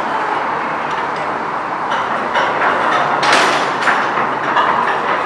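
Gondola lift station machinery running steadily as cabins move through on the cable, with several clacks and knocks from the cabins and their hangers.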